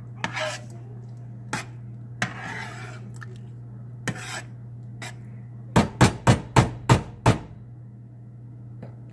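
Metal spoon scraping and clinking through thick spaghetti sauce in a stainless steel pan, then about six quick knocks of the spoon against the pan a little after halfway. A steady low hum runs underneath.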